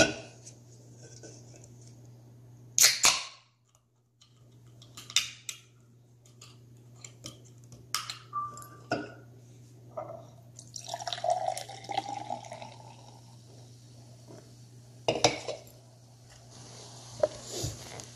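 A can of Coca-Cola opened and poured into a glass tumbler: soda splashing and fizzing into the glass, with sharp clicks and clinks of can and glass on a granite countertop.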